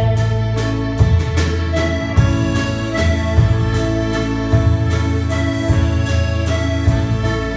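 Instrumental break led by a button accordion playing the melody, over a band accompaniment with a steady bass and regular beat.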